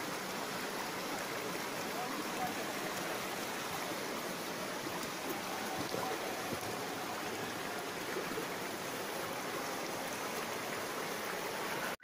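Steady rush of flowing water from a rocky stream, an even hiss with no breaks.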